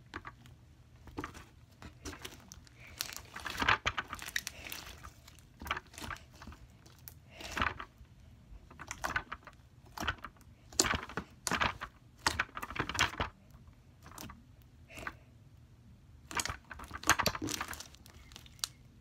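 Orange slime packed with small beads being kneaded, squeezed and stretched by hand, crackling and popping in irregular bursts.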